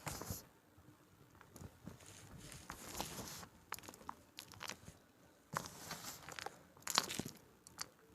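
A slab of white cornstarch with a gym chalk topping being crushed, crunching and crackling in a series of irregular bursts, the loudest right at the start and about seven seconds in.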